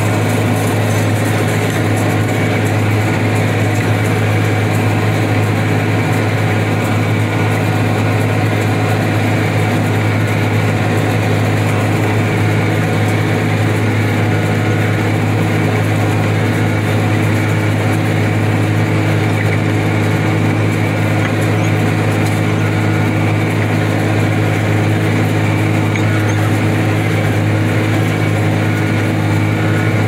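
A tractor engine running steadily under load while it pulls a round baler that is taking in hay, heard from inside the cab. It makes a constant, unchanging drone with a strong low hum.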